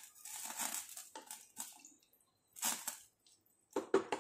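Spatula stirring rice through watery chicken stock in a large pot, wet swishing and scraping strokes. The stirring pauses about halfway, with a few louder strokes near the end.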